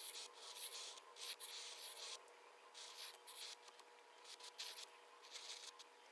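Flex-nib pen scratching across paper in quick, uneven strokes as big oval loops are drawn in ink; faint.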